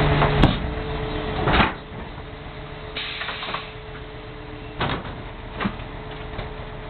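Garbage truck packer blade crushing trash bags over the truck's steady engine drone, with several sharp cracks and pops as the bags burst. It is louder in the first second and a half, then settles lower.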